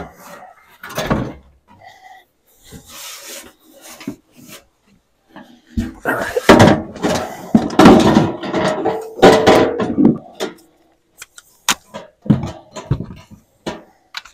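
Rubbing and scraping handling noise with scattered knocks and clicks, loudest for about four seconds in the middle.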